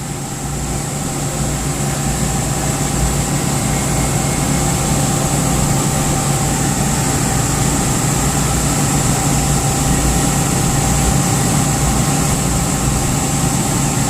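Refrigeration compressor of a beer-keg chiller humming steadily without starting while its start capacitor tries to force it, drawing about 15 amps: a hard-starting compressor that will not turn over.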